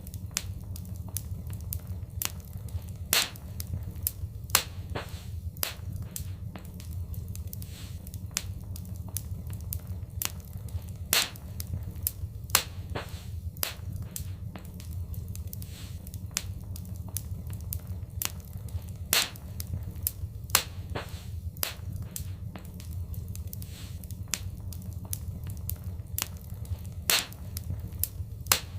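Wood fire crackling in a fireplace: a steady low rumble of the flames with frequent irregular snaps and a few louder pops.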